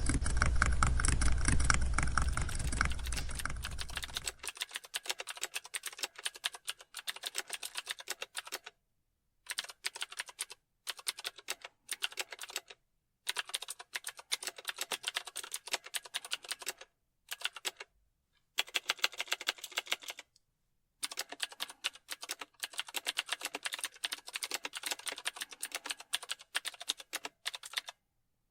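Computer keyboard typing: fast runs of key clicks in bursts of a few seconds, broken by brief pauses. Over the first four seconds a loud low rumble underlies the typing and fades out.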